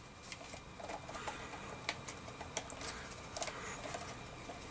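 Faint, scattered light clicks and rubbing of plastic as hands handle the battery compartment and battery cover of a Discovery 2200 metal detector's control box.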